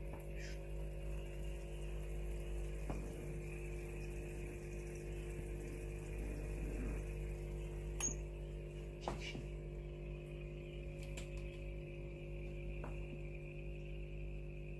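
Steady hum of aquarium equipment running, from the filter pump. A few light clicks from metal tweezers at the tank, the sharpest about eight seconds in and another a second later.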